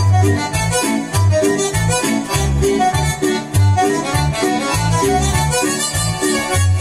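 Instrumental intro of a Transylvanian folk-song backing track: a melody over a steady, regular beat of alternating bass notes and chords.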